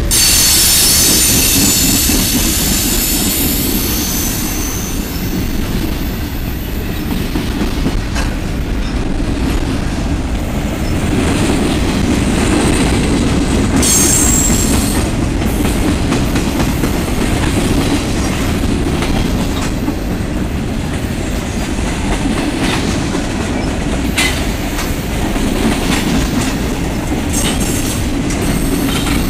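Freight train of boxcars and tank cars rolling past close by: a steady rumble of wheels on the rails with occasional knocks. A high wheel squeal sounds over the first few seconds and again about 14 seconds in.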